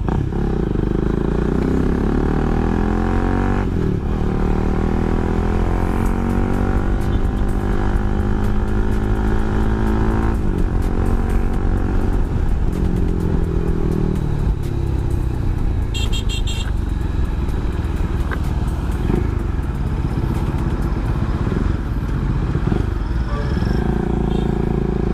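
Motorcycle engine running under load while riding, its pitch climbing and then dropping back several times as it accelerates and shifts gear.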